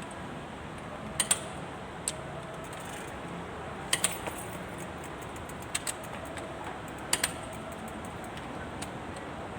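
Metal hand tools clinking against metal engine parts: sharp clinks in ones and pairs every second or two, over a steady background hum.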